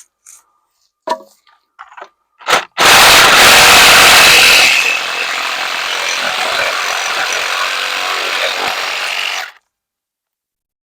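A few light knocks, then a power saw cutting wood: very loud for about two seconds, then running at a lower steady level for about five more, stopping abruptly.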